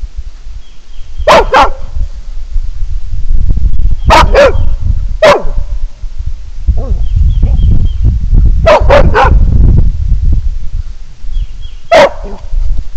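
American Farm Collie barking at a dead snake: about nine short sharp barks in groups of one to three, over a steady low rumble.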